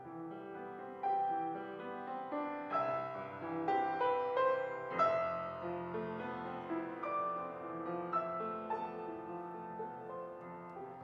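Grand piano playing a classical passage on its own, a steady stream of struck notes.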